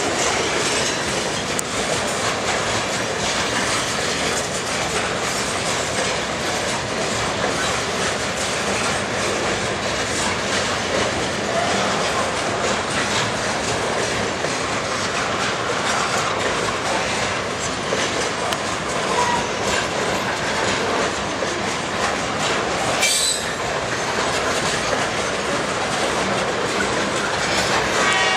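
Loaded and empty steel hopper cars of a freight train rolling past: steady wheel-on-rail rumble with clickety-clack over the rail joints and brief wheel squeals. One sharp clank comes late on.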